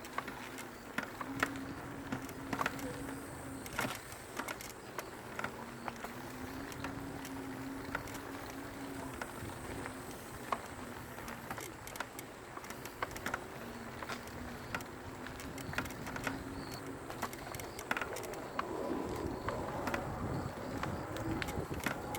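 Mountain bike rolling down a dirt trail: tyre noise with frequent sharp clicks and rattles, and a low steady hum that comes and goes. The rushing noise grows louder near the end.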